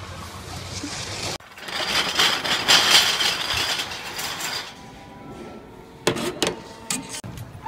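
Bottle-return (reverse vending) machine taking a glass bottle: a loud rushing noise for about three seconds, then a faint steady motor whine, with a few sharp clunks near the end as the bottle goes into the intake.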